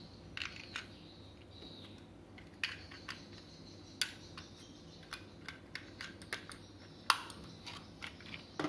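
Scattered sharp plastic clicks and taps from handling the underside of a slim wireless mouse, its battery cover and receiver slot being fitted; the loudest click comes a little after seven seconds in.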